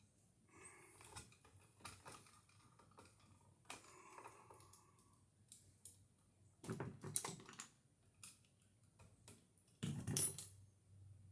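Small hard objects clicking and clattering as they are handled, with two louder bouts of clatter about seven and ten seconds in.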